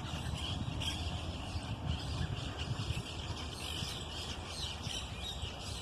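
Many small birds chirping and calling, short overlapping chirps throughout, over a steady deep rumble.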